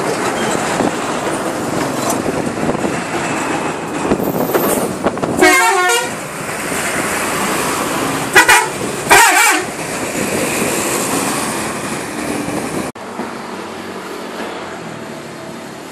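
A bus passing close, loud road and engine rush, while its telolet horn (a multi-tone musical bus horn) plays a short warbling tune about five seconds in, then two more short blasts around eight and nine seconds. The noise drops suddenly near the end.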